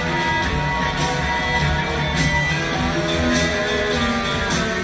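Live rock band playing with no singing: electric guitar lines over a bass guitar.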